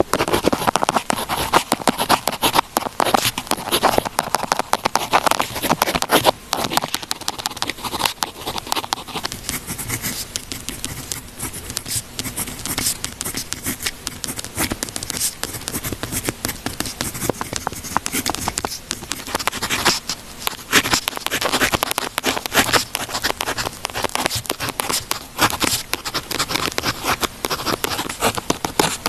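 Pen writing on paper: a continuous close-up scratching made of many small strokes and taps.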